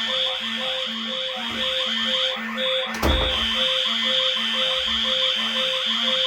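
Many fire alarm horn strobes and speaker strobes sounding together, some pulsing in coded patterns (temporal, march time) while others sweep or hold a steady tone, making a loud, clashing mix of alarm tones. A single sharp click comes about three seconds in.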